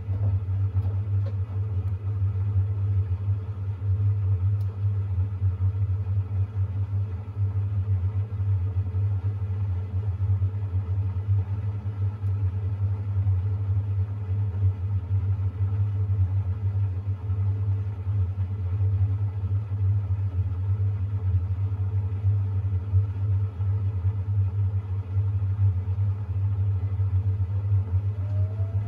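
Siemens iQ700 washing machine spinning its drum after the wash drain on a gentle Shirts cycle: a steady low rumble with a faint steady motor whine above it. Near the end a faint rising whine as the spin speed climbs.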